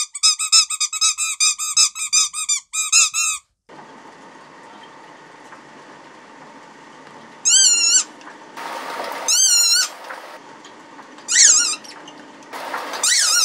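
Rubber squeaky dog-bone toys squeezed by hand, giving about a dozen quick pitched squeaks, three or four a second. After a short pause a shredder starts and runs with a faint steady hum, and the toy squeaks four more times, longer and louder, as it is pressed into and crushed by the shredder.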